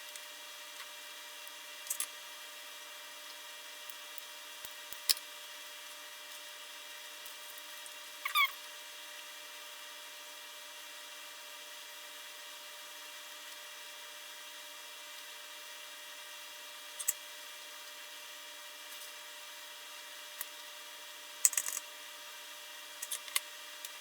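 A steady low hiss with a faint hum, broken by a handful of small sharp clicks and taps from hand tools and parts being handled on a workbench while circuit-board components are soldered. There is a brief squeak about eight seconds in.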